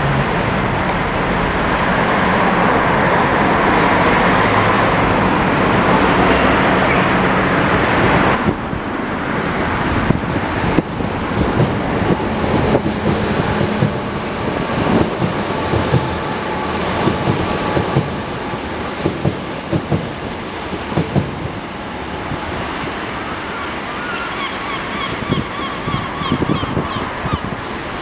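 A vehicle engine running, with wind noise on the microphone. About eight seconds in the sound changes abruptly to a rougher wind rumble with scattered knocks.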